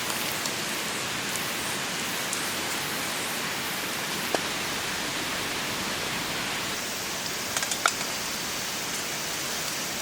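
Steady hiss of heavy rain, with a few sharp clicks about four seconds in and again near the end.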